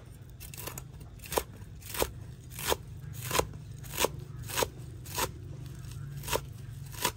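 A large kitchen knife chopping a pile of small-leaved green herbs on a wooden chopping block: a steady run of about ten sharp chops, roughly one every two-thirds of a second, with a slightly longer gap near the end.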